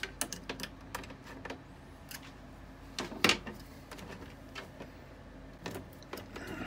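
Scattered clicks and knocks of a dehumidifier's plastic casing and parts being handled and taken apart, with one louder knock about three seconds in.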